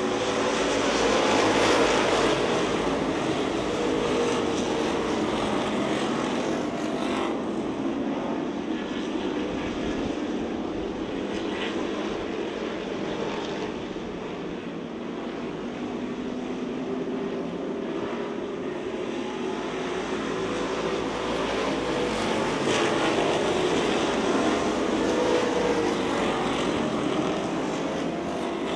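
A pack of dirt-track street stock cars racing, their engines running together as one steady drone. It swells as the field passes, loudest near the start and again about two-thirds of the way through.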